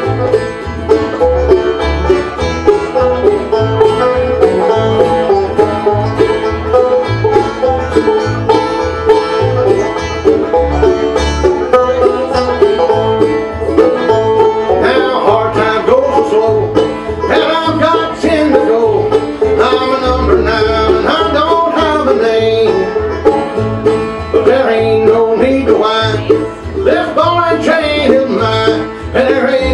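A live acoustic bluegrass band playing an instrumental break: banjo, acoustic guitars and mandolin over a steady, alternating low bass line. About halfway through, a lead line with sliding, bending notes comes forward.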